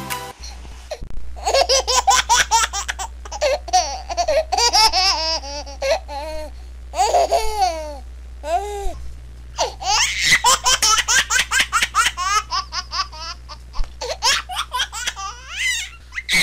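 A small child's high-pitched laughter, in many short runs of giggles and squeals.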